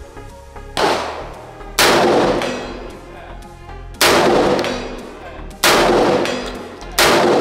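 Five shots from a magazine-fed semi-automatic 12-gauge shotgun, fired at an uneven pace over about six seconds. Each shot is followed by a ringing echo that dies away over about a second.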